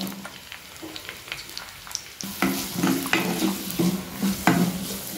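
Chopped onions sizzling in hot oil in a clay pot. About two seconds in, the sizzle grows louder as a wooden spatula starts stirring, scraping against the clay in repeated strokes.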